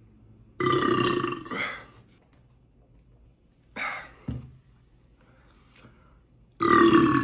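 A man belching three times after drinking Coca-Cola. There is a long burp about half a second in, a short one near the middle, and another long one near the end.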